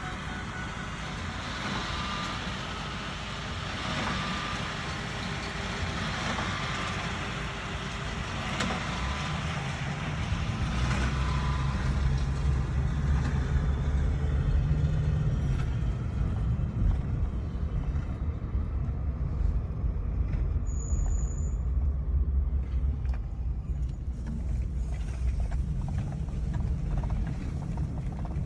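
Farm tractor running under load while pulling a hay baler through the straw, a steady engine drone with a low rumble that grows louder about ten seconds in.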